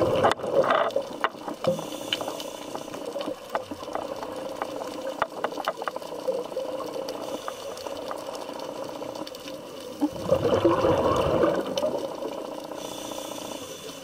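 Underwater sound from a diver's camera: the diver's exhaled breath bubbling up in two loud gurgling bursts, one at the start and one about ten seconds in. Scattered sharp clicks and crackle run between them.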